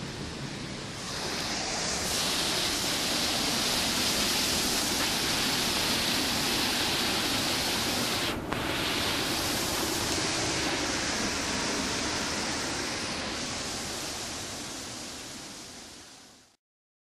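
Water rushing and churning through the open gates of a river weir, a steady loud roar of white water that fades out near the end.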